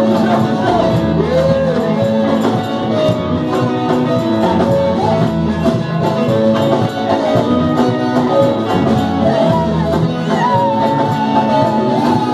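A live worship band playing keyboard and drums, with singing over it.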